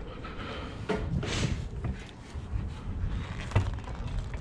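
A few scattered clicks and knocks over a low rumble, from a car wheel and tyre being handled and fitted at the wheel well.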